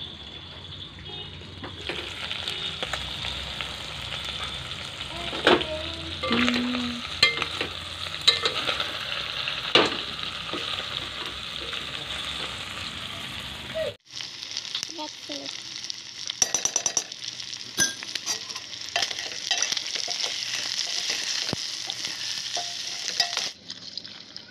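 Boiled pork sizzling in an aluminium pot now that its cooking water has nearly boiled away, with a steel ladle stirring and clicking against the pot. A steady hiss runs with scattered sharp knocks, and breaks off suddenly about halfway through before starting again.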